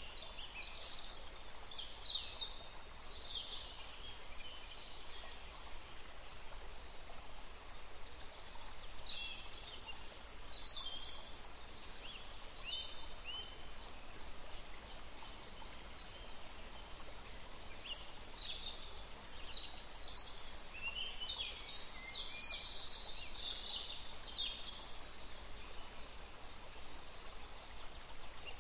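Fish fillets frying in hot oil in a nonstick pan: a steady sizzle with clusters of small crackles and pops that come and go.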